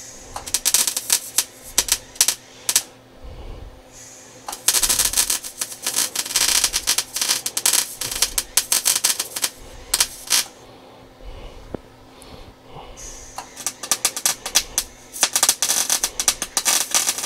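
Wire-feed welder crackling as it lays short welds on a new sheet-metal floor pan patch. The crackle comes in three runs with brief pauses between them.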